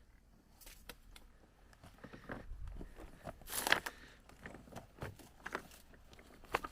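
Faint, scattered crunching and rustling, like movement over dry ground and vegetation, with one louder sharp crack a little past halfway.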